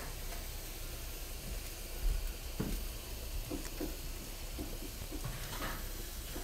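Barbecue-sauced steaks and chicken sizzling on a gas grill's grates, a steady hiss with a few light taps and clicks from the basting brush and tongs.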